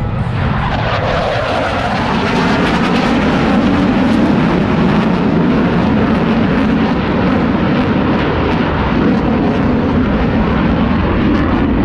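Blue Angels Boeing F/A-18 Super Hornet jets flying past with loud, steady jet engine noise; the pitch falls in the first second as a jet goes by.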